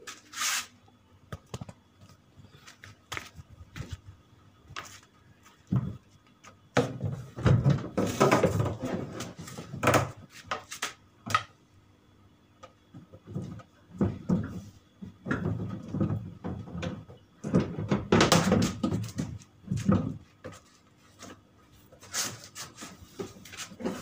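The plastic cabinet of a twin-tub washing machine knocking and scraping as it is tipped upright and shifted on a concrete floor, in irregular clusters of bumps with quieter gaps between.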